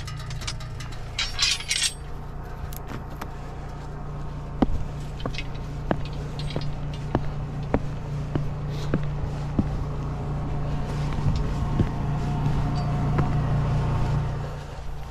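Suzuki KingQuad ATV engine running steadily as it is ridden slowly over a rough trail, with scattered knocks and metallic clinks throughout and a brief jingle about a second in.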